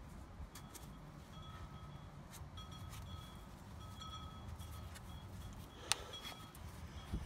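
Faint rubbing and handling noise as a microfiber towel wipes degreased grime off the metal underside of a car, with a light click about six seconds in.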